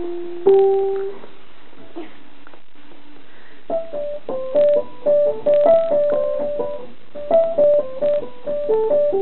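Upright piano played by hand: a held note near the start, then after a pause of a few seconds a short melody of quick single notes in the middle register.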